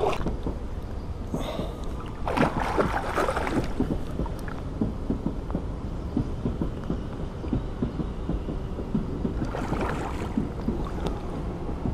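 A hooked pike thrashing and splashing at the water's surface during the fight: a splash right at the start, a longer bout of splashing about two to three seconds in, and another about ten seconds in, over a steady low rumble.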